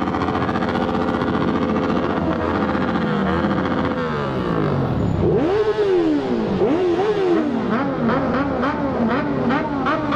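Many motorcycle engines running and revving together, several pitches rising and falling over one another, with repeated throttle blips in the second half.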